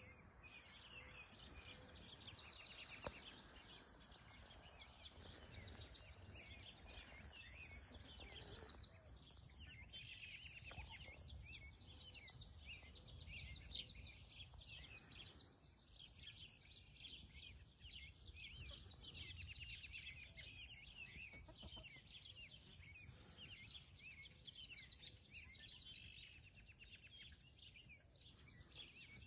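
Faint outdoor ambience: small wild birds chirping and trilling in short, quick phrases again and again, over a steady high hiss and a soft low rumble.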